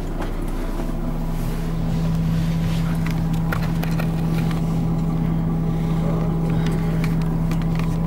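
Tour coach's engine running, heard from inside the passenger cabin as the coach drives: a steady drone that grows louder over the first couple of seconds and then holds, with a few light clicks.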